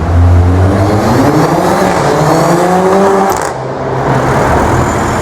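Ferrari F40's twin-turbo V8 accelerating hard, its note climbing steadily for about three seconds. It then drops back and settles into a steadier, lower note.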